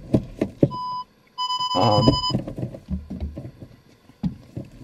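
Park distance control buzzer sounding as reverse gear is engaged: a short beep, then a longer beep of about a second on the same tone. A few clicks come just before it.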